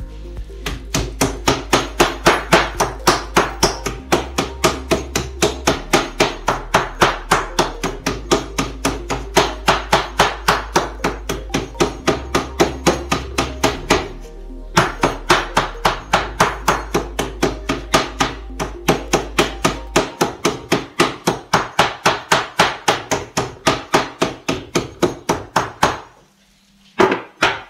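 Meat pounder beating a turkey cutlet flat under plastic film on a cutting board: a fast, even run of dull blows, about three to four a second, with a short break about halfway and a stop near the end. Background music plays underneath.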